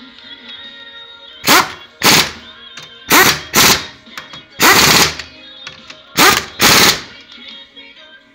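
Pneumatic impact wrench rattling in seven short bursts, each under half a second, on bolts of a power steering gearbox.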